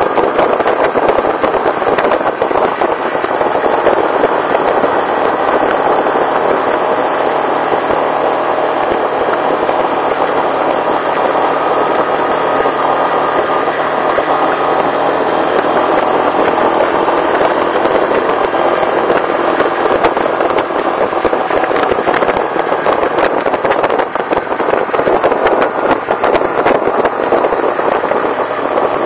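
Yamaha Kodiak 450 ATV's single-cylinder four-stroke engine running steadily while riding, with a constant crackle of tyres on gravel.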